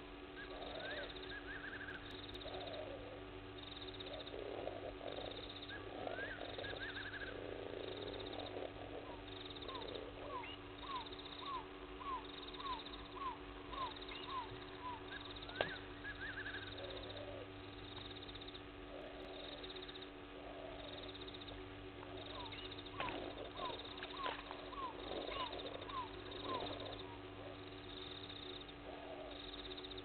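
Night-time wildlife calls: two runs of about ten short, falling calls, about two a second, over scattered lower calls and a steady low hum.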